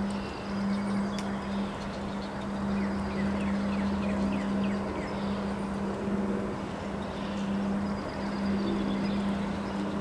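Wind blowing through bare trees in a windstorm, a steady rushing noise, under a steady low hum that breaks off briefly now and then. A bird calls a quick run of short falling notes about three seconds in.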